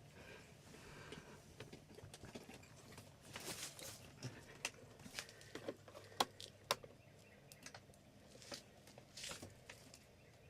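Faint rustling and scattered light clicks and knocks, with a couple of short swishes about a third of the way in and near the end: people shifting and handling gear as they move out of a hunting blind.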